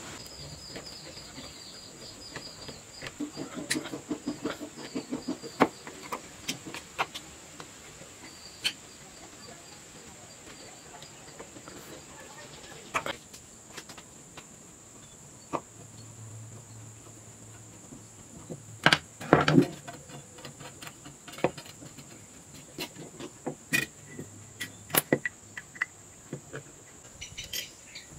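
Scattered sharp clicks, taps and small metallic knocks of screwdrivers working a metal blade mechanism set into a wooden knife handle, the loudest knocks about two-thirds of the way in, over a steady high-pitched background tone.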